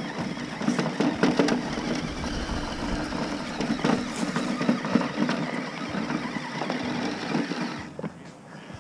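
Radio-controlled rock crawler driving over rough ground: its small electric motor and gearbox whir steadily, with scattered clicks and knocks from the tyres and chassis on the terrain. The sound drops off near the end.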